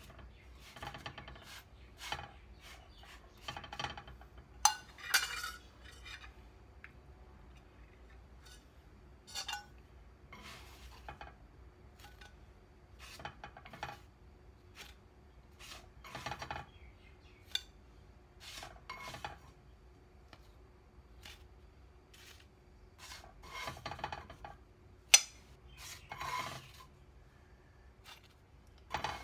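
A metal spoon scraping and scooping along the bottom of a nonstick frying pan, with scattered sharp clinks of the spoon against the pan and plate as cooked buns are lifted out.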